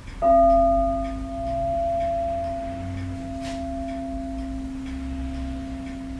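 A metal Wenchang pagoda struck once, ringing out with a low hum and a higher overtone that fade slowly; a still higher overtone dies away within about a second and a half.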